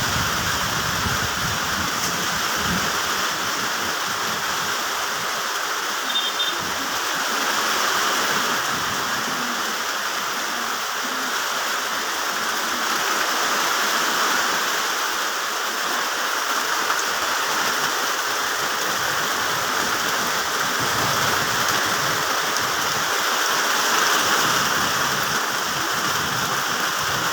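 Steady rain falling on plant leaves, a dense, even wash of raindrops.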